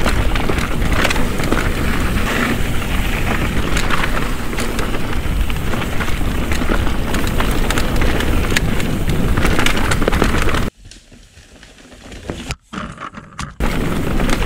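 Mountain bike descending a dirt singletrack: wind rushing over the camera microphone and knobby tyres rolling on dirt, with frequent clicks and rattles from the bike. The noise drops away sharply for about three seconds near the end, then comes back.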